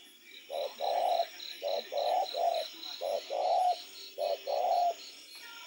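Spotted dove cooing: four phrases of two or three low, hooting coos each, repeated at short intervals. A high, even pulsing, about four beats a second, runs steadily behind.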